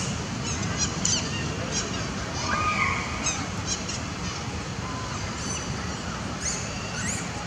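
Outdoor background: a steady low rumble with many short, high chirps scattered throughout, and a brief whistled call about three seconds in.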